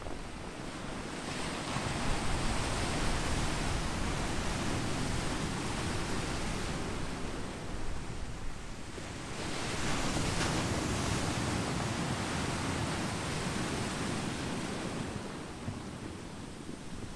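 Pacific surf washing over a beach of smooth volcanic boulders and pebbles. Two waves come in a few seconds apart, each swelling and then washing back.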